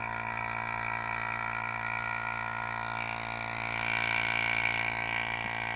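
Electric A/C vacuum pump running steadily as it pulls a deep vacuum, past 20 inches of mercury, on an empty refrigerant recovery cylinder. It is a steady low drone, with a brighter, higher note swelling in about three to four seconds in.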